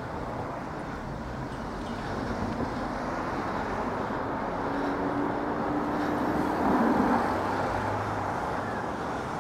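Road traffic with a vehicle passing, growing louder to a peak about seven seconds in and then easing off, over a steady street hum.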